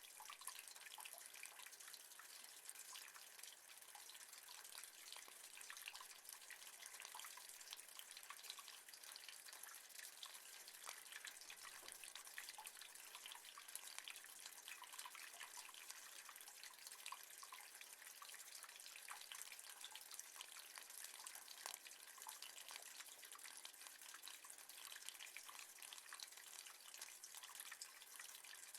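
Rain falling on metal: a faint, steady, dense patter of many small drops ticking on the surface.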